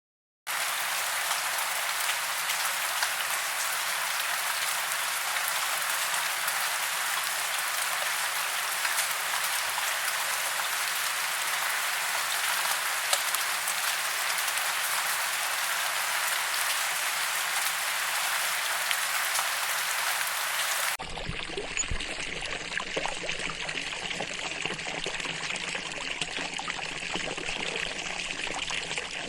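Running water: a steady, even hiss. About two-thirds of the way through it cuts abruptly to a different, deeper running-water sound.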